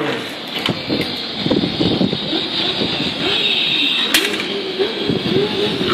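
A toddler making a wavering 'vroom' engine noise with his voice while pushing a die-cast toy car across a granite floor. A few sharp clicks of the toy car on the stone come through, the loudest about four seconds in.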